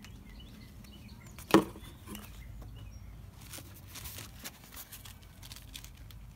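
Cardboard box flaps and a padded climbing harness with its straps and buckles being handled: rustling and scraping, with one sharp knock about a second and a half in and a few light clicks later.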